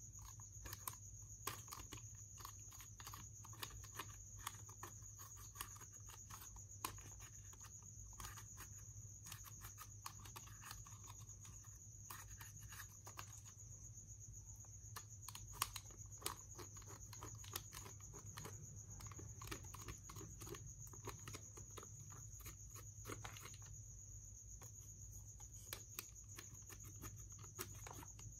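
Clear slime with makeup mixed in, being kneaded and pressed flat by hand: faint, irregular sticky clicks and crackles.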